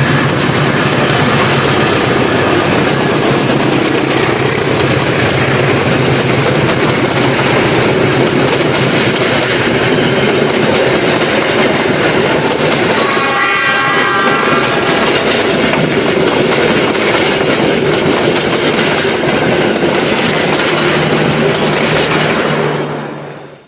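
Passenger train running along the track, a loud steady rumble of wheels on rails with clickety-clack. A pitched tone sounds briefly about halfway through, and the sound fades out near the end.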